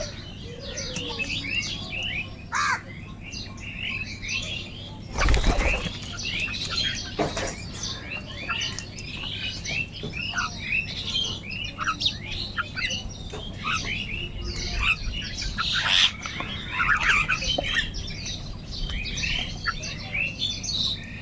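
A dense flock of birds calling, with many short chirps and squawks overlapping without a break. A brief, loud rush of noise comes about five seconds in.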